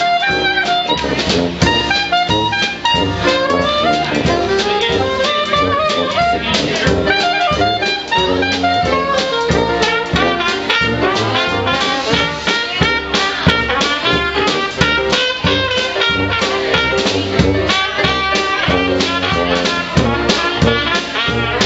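A live Dixieland jazz band of trumpet, trombone, a reed instrument, tuba and drum kit playing a tune together over a steady beat, with no breaks.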